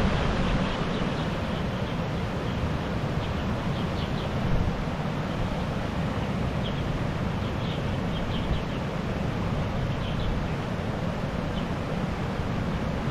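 Steady rush of water spilling over a low concrete weir, with wind buffeting the microphone.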